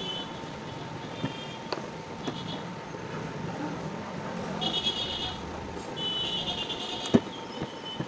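Vehicle horns honking several times over background street traffic, with a few sharp clicks and taps of a screwdriver and metal parts handled on a ceiling-fan casing; one click just after seven seconds is the loudest.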